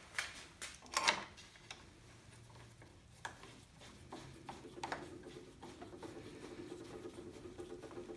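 Knocks and clicks of a cross-slide milling table and its clamped wooden jig being handled and moved by hand, the loudest knock about a second in. A faint steady hum comes in about four seconds in.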